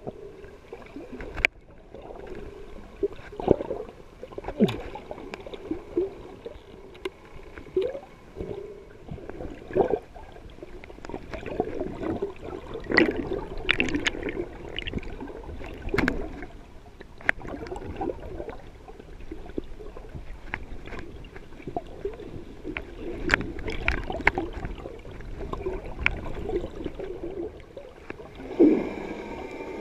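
Muffled underwater sound from a snorkeler's camera: water gurgling and sloshing, with irregular sharp clicks and knocks and a louder burst near the end.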